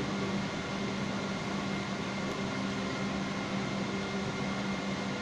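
Steady hum and hiss of an airliner cabin's ventilation and air conditioning while the plane sits on the ground, an even rush of air over a constant hum.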